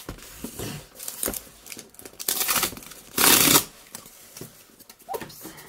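Packaging on a cardboard parcel being torn open: two ripping tears, the second about three seconds in and the loudest, with rustling and handling noises around them.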